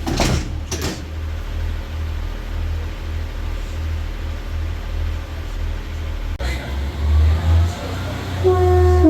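A Pacer diesel railbus idling with a low, pulsing rumble, then its horn sounds one loud, held note near the end. Two brief clatters just at the start.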